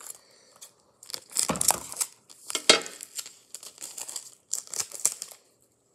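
Paper and clear tape crinkling and tearing as they are handled, in a string of crackling rustles that starts about a second in, with the loudest one near the middle.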